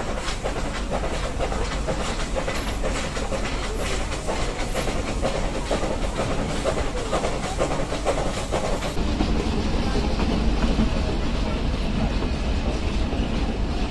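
Nilgiri mountain toy train running along its track: a steady rumble with a dense, irregular clatter of wheels over the rails.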